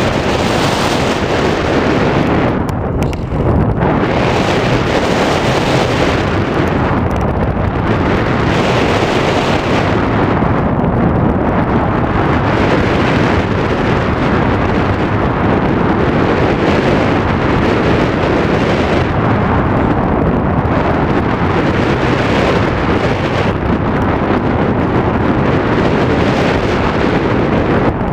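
Loud, steady wind rush and buffeting on the microphone of a camera carried in flight, the airflow swelling and easing from moment to moment with no clear engine tone.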